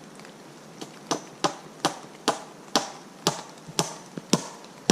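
Hammer driving a nail into a log: a steady run of about nine sharp strikes, a little over two a second, starting about a second in.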